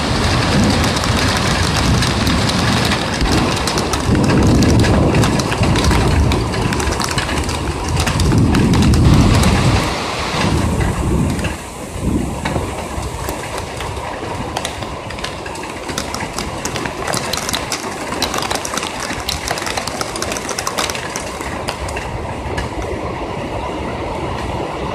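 Heavy rain pelting an eave and the body of the recording phone, a dense patter full of sharp individual drop hits. Deep rolling thunder rumbles under it through the first ten seconds or so, loudest about four and nine seconds in, after which the rain goes on alone.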